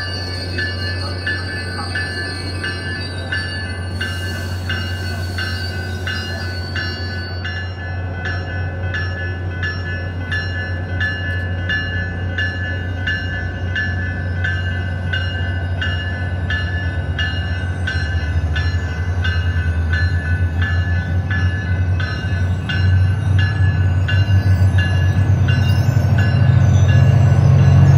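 SunRail commuter train arriving: a bell rings steadily about twice a second over the low drone of the train, which grows louder as the bi-level coaches and the diesel locomotive draw near.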